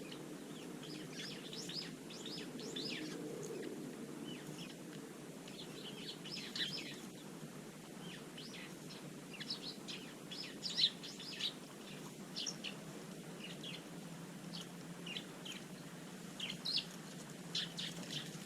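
Small garden birds chirping, a string of short, sharp calls that come in little clusters, some of them louder, over a faint steady background noise.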